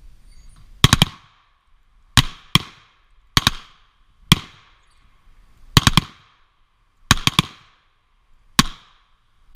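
Revolver shots on an outdoor range: about ten loud, sharp reports in an irregular series, several coming in quick pairs or triples, each with a brief echoing tail.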